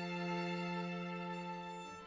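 Background music with long, held, violin-like string notes, moving to a new note just before the end.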